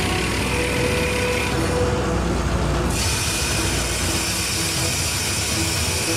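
Crawler drill rig running steadily with a continuous mechanical din, its character shifting about three seconds in.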